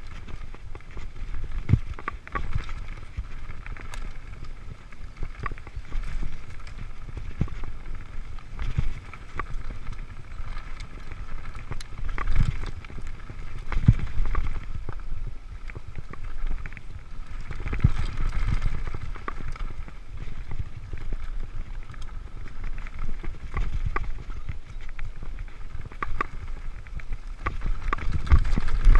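Mountain bike ridden fast over a dirt singletrack: tyres running over dirt and roots, with frequent short rattles and knocks from the bike over bumps, and wind rumbling on the microphone.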